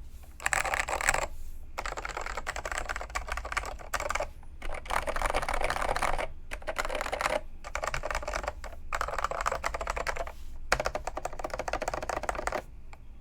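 Apple Extended Keyboard with tactile orange Alps switches being typed on in fast runs of key clicks broken by short pauses, stopping shortly before the end. The switches are dry-lubed and the case is foam-damped against ping, giving the deep switch sound the owner likes.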